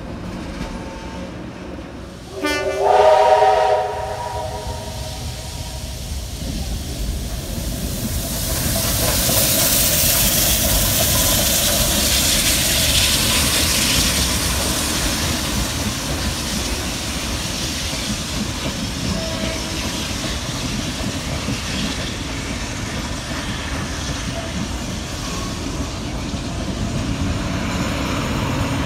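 A train sounds a short, loud horn blast of several tones together about two and a half seconds in. The train's running noise then builds into a hissing rumble, loudest around ten seconds in, and carries on steadily.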